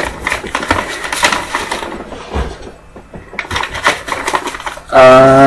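Trading cards being handled on a tabletop: irregular light rustles and clicks with a short pause halfway. Near the end a man's voice begins.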